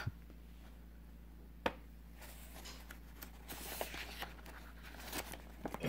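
A single sharp click about one and a half seconds in, then soft paper rustling and scraping as a picture book's page is turned.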